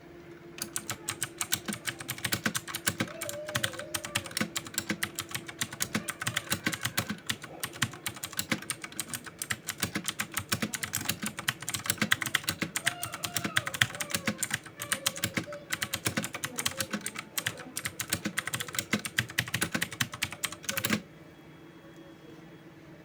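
Fast, continuous typing on a 60% mechanical keyboard during a typing test, a dense rattle of key clicks that stops abruptly near the end.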